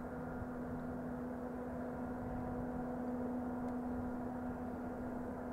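Diesel locomotive running steadily: a constant-pitched hum over a low rumble, with no change in speed.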